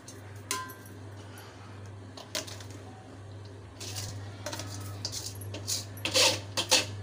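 Steel colander and plate knocking against the rim of an aluminium cooking pot as parboiled rice is tipped in to layer a biryani: a few sharp metal clinks with a short ring, a soft rush of sliding rice, then a run of louder clanks near the end. A steady low hum sits underneath.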